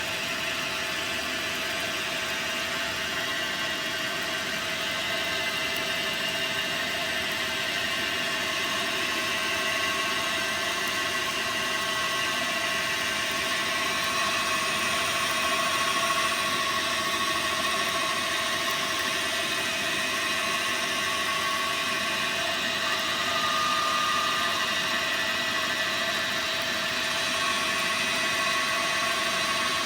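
Dyna Mechtronics DM3000 CNC lathe running while turning a part: a steady mechanical hum and whine, with a higher whine that swells and fades a few times.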